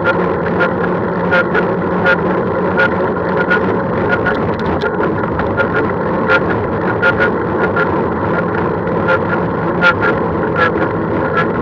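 Steady running noise of travelling along a road, with light rattling clicks two or three times a second.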